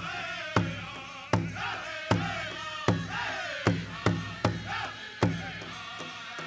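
Pow wow drum and singers: a large drum struck in a steady beat, a strong stroke about every three-quarters of a second, under high-pitched chanted singing that rises and falls.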